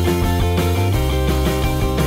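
Background rock music with guitar over a steady bass line.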